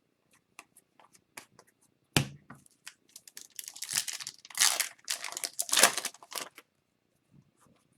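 A hockey card pack's wrapper being torn open and crinkled, in several noisy bursts over a few seconds. Light clicks of cards being handled come first, with a thump about two seconds in.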